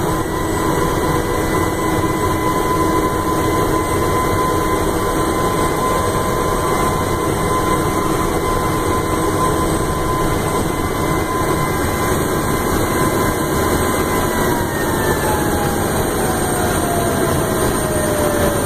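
Engine and road noise inside the cab of an emergency response vehicle driving to a call, loud and steady. A faint whine holds one pitch, then slowly falls in pitch over the last few seconds.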